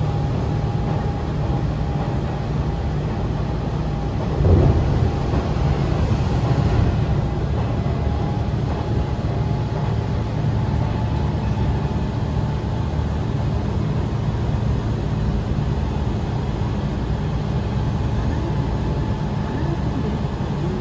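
Hanshin Railway train running, heard from inside the carriage: a steady low rumble with a faint steady whine. One brief louder surge comes about four and a half seconds in.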